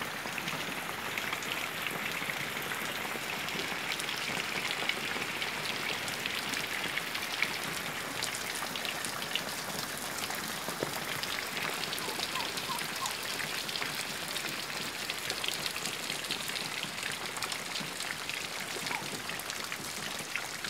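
Steady rain falling on a flooded paved surface and standing water: a dense, even hiss peppered with many small drop splashes.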